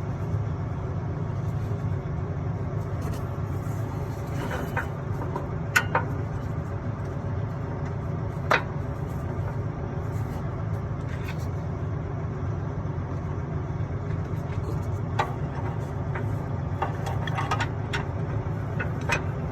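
Steady low engine hum, with a few sharp metallic clicks and taps from hand tools as the new crankcase breather line fitting is put in with a bit socket and tightened.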